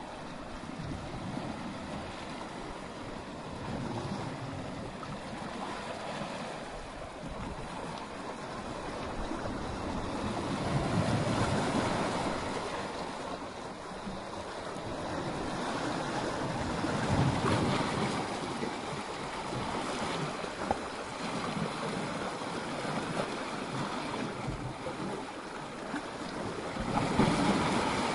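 Heavy sea surf breaking and washing against rocks: a continuous rush of water that swells into louder surges several times as waves crash in.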